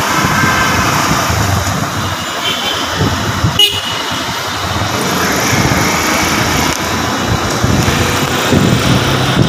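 Busy city road traffic: bus and motorcycle engines running, with occasional vehicle horns.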